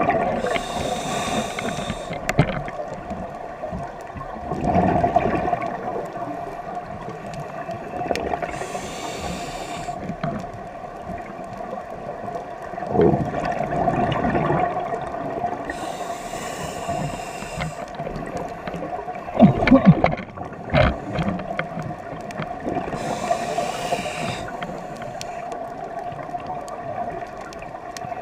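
Scuba regulator breathing heard underwater: about every seven seconds a second-long rush of exhaled bubbles, four times, over a steady hum.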